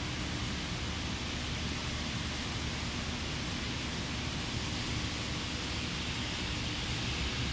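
Steady workshop background noise: an even hiss with a low hum beneath it, with no distinct events.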